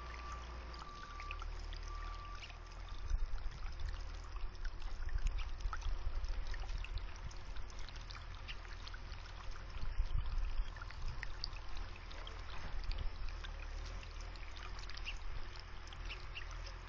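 Water from a birdbath fountain bubbling and trickling over rocks, with a low, uneven rumble underneath that swells a few times.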